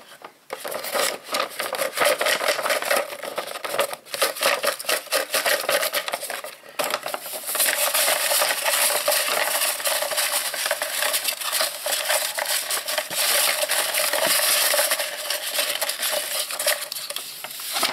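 Hand rummaging among folded paper slips in a plastic bowl, mixing the lots before a draw: a continuous rustling and scraping of paper against the bowl, busier in the second half.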